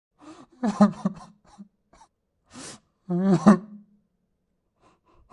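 A man sobbing: two wavering, wailing cries about two and a half seconds apart, with a sharp gasping breath between them.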